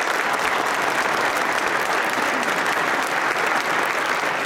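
Large audience applauding steadily: many hands clapping at once.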